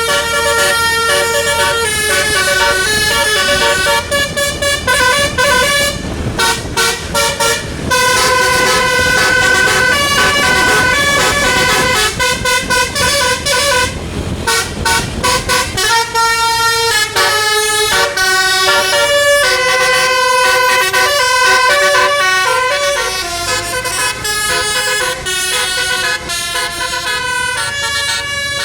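Telolet basuri multi-tone musical horn on a tour bus playing a melody of quickly changing notes, with runs of short staccato toots. The bus engine runs underneath.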